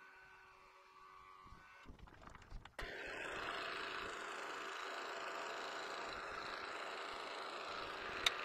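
A milling machine's spindle motor switched on about three seconds in and running steadily, spinning an edge finder to locate the workpiece's center. A sharp click near the end.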